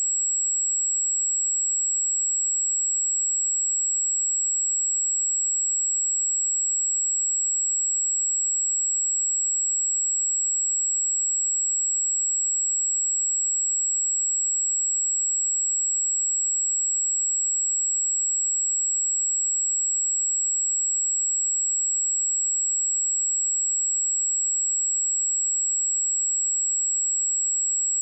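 Steady pure sine-wave test tone at 7696 Hz, a single high-pitched whistle held at constant level, used to check speakers or headphones.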